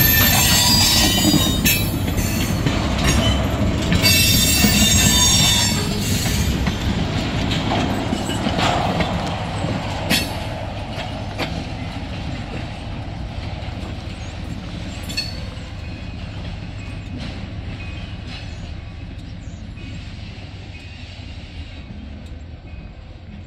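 Freight train tank cars rolling past on their steel wheels, squealing against the rails for the first several seconds over a low rumble. The rumble, with an occasional clank, then fades steadily as the end of the train moves away.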